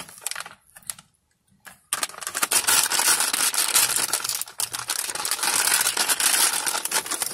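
Crinkly plastic packaging of a squishy toy being handled and pulled open. A little rustle, a pause of about a second, then from about two seconds in a dense, continuous crackling of the plastic.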